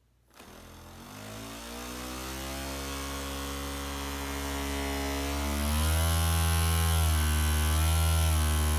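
Small electric motor with an off-balance weight on its shaft, hot-glued to a plastic cup as a homemade vibration cleaner, switching on and running with a buzzing hum. It rises in pitch and gets louder as it spins up, then steps up again and grows louder about six seconds in as more voltage is given.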